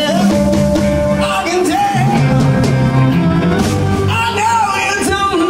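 Live blues band playing: amplified blues harmonica wailing and bending notes into a vocal mic over electric guitar, a moving bass line and keyboard.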